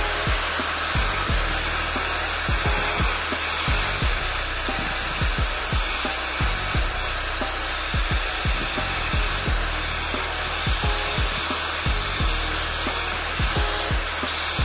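Steady rushing blower noise under background music, with a low, irregular thumping beat.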